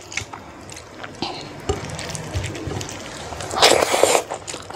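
Close-up eating sounds: fingers squishing through rice and curry with small wet clicks, then a loud slurp at the mouth about three and a half seconds in.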